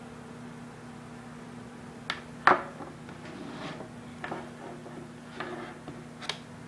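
Handling noise as a small plastic 12V cigarette-socket adapter cable is taken out of a storage case and set down on a table: a few sharp clicks and knocks, the loudest about two and a half seconds in, over a steady low hum.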